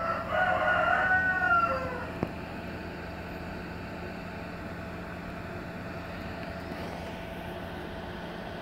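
A loud pitched call lasting about two seconds and falling at the end, then a single sharp click and a steady low hum.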